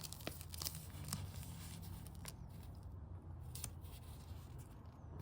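Small packet of fabric tape being torn open and handled: faint tearing and crinkling of the wrapper with a few light clicks, over a low steady hum.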